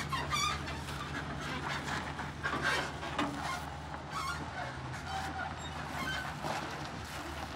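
An engine idling with a steady low hum, with birds chirping now and then over it.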